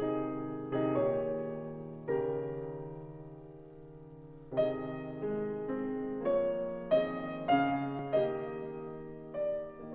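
Slow solo piano music: chords struck one after another, each left to ring and fade. One chord is held for about two and a half seconds before the chords come faster again.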